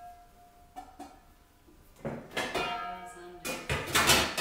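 Dishes and cutlery clattering and clinking as a dishwasher is unloaded, with the loudest clatter in the last second.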